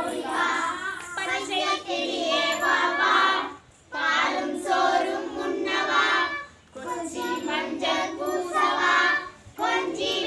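A group of children singing a Tamil parrot song together, in phrases of about three seconds with short breaks for breath between them.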